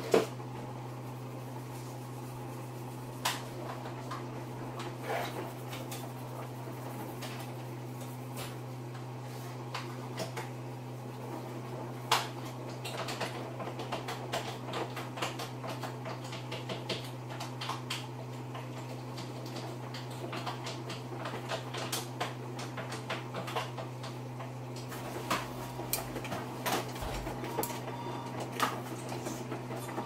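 Samsung Eco Bubble front-loading washing machine tumbling a mixed load in the wash phase: a steady low motor hum with irregular light clicks and clinks from the load turning in the drum.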